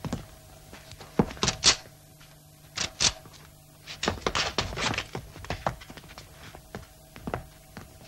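A run of irregular thuds and knocks on a hard surface: a few single blows, then a quick cluster about four to five seconds in, over a steady low hum.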